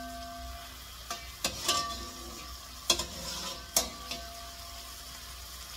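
A metal spoon scooping chicken pieces and knocking against a ceramic-coated frying pan about six times, each knock leaving a short ringing tone, over a faint steady hiss.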